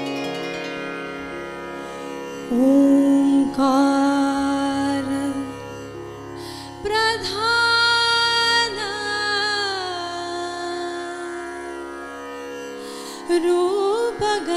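A female vocalist sings a slow Indian devotional melody in long, ornamented held notes over keyboard accompaniment. The instrumental accompaniment plays alone at first, and the voice comes in about two and a half seconds in.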